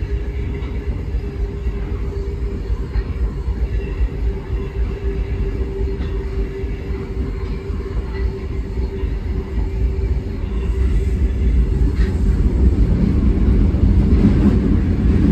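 Running noise of an Osaka Metro Tanimachi Line 22 series subway car heard from inside the car: a steady low rumble of wheels on rail with a steady hum, growing louder about eleven seconds in.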